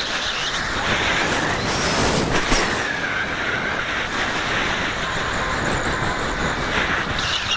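Steady rushing wind noise over the microphone of a camera carried by a flying falcon, with faint passing tones now and then.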